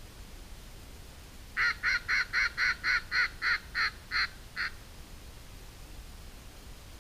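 A run of about eleven mallard hen quacks, evenly spaced over some three seconds and starting about a second and a half in; the last two trail off quieter.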